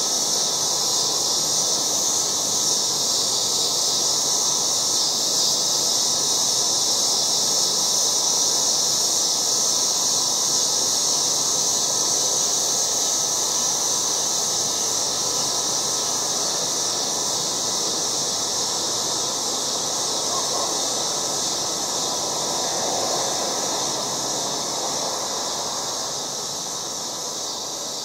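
A chorus of cicadas gives a loud, steady, shrill buzz. It eases off slightly over the last few seconds.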